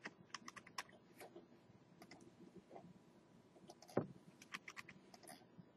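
Faint, scattered clicks and taps of a computer keyboard and mouse, with one sharper click about four seconds in.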